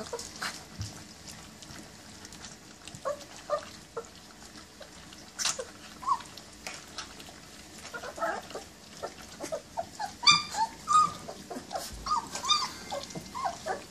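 German Shepherd puppies whimpering and yipping in short high squeaks while they eat, over small clicks and crunches of dry kibble in a steel pan. The squeaks come thicker after about eight seconds, with one louder squeal about ten seconds in.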